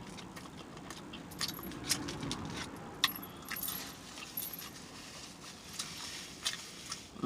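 Close-miked chewing of a mouthful of filled crepe, with wet lip-smacking clicks coming at irregular intervals.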